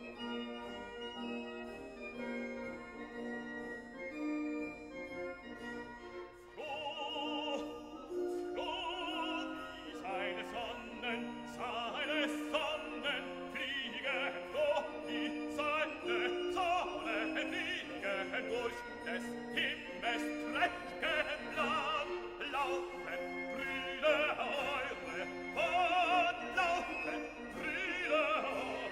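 Classical music with an operatic singing voice. The first six seconds or so are steady held notes; after that a voice with a wide vibrato sings over the accompaniment.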